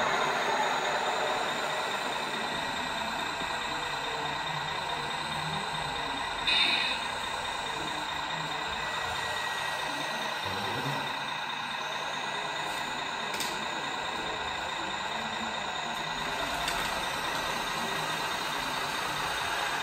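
Radio-controlled scale models of a CAT 740 articulated dump truck and a Zettelmeyer ZL 4001 wheel loader working, giving a steady engine-like drone with several held tones. A short high two-toned beep sounds about six and a half seconds in, and a small click about thirteen seconds in.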